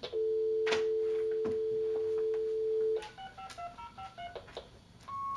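Landline telephone dial tone, a steady two-note hum, lasting about three seconds. Then comes a quick run of touch-tone keypad digits being dialled, and a short single beep near the end.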